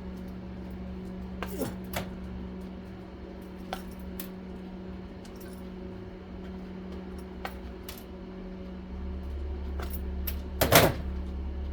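Small metal parts clinking and clattering as the vacuum unit is taken apart: scattered sharp clicks, then a louder clatter near the end, over a steady low hum.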